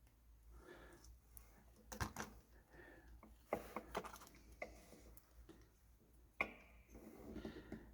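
Faint scattered clicks and rustling of hands handling small electronic kit parts and tools, with a few sharper ticks among them.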